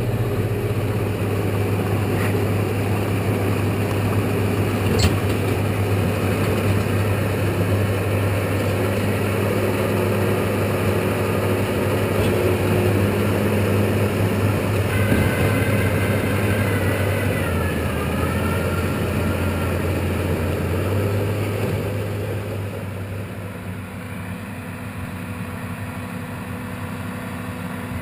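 Diesel farm tractor's engine running steadily under load while pulling a round baler, with a spread of mechanical clatter from the machinery. About three quarters of the way through the engine sound drops and grows fainter.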